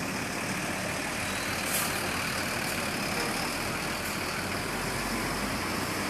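Steady roadside traffic noise: vehicle engines running and tyres on the road, with a heavy vehicle's engine among them.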